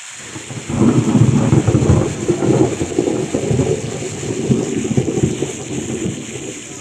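A long roll of thunder rumbling over steady rain hiss, rising suddenly under a second in and slowly easing off.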